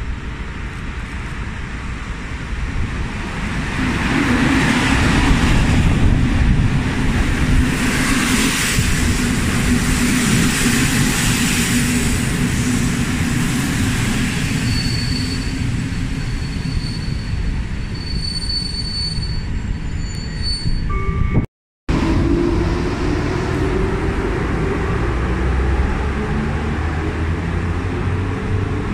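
A train running past on rails, with a steady rumble of wheels. A thin, high wheel squeal comes and goes from about halfway through. The sound cuts out for an instant about two-thirds of the way in.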